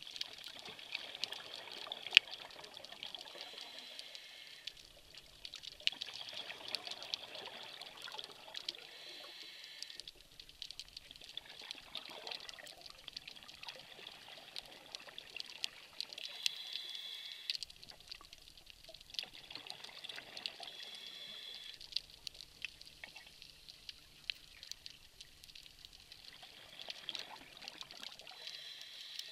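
Scuba regulator breathing heard underwater. Each slow inhale is a hiss through the demand valve, and each exhale is a burst of bubbling, repeating every several seconds. Scattered small clicks run through it.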